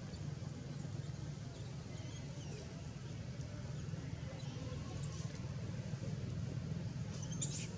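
Steady low outdoor rumble with scattered faint high chirps, which come thicker and brighter near the end.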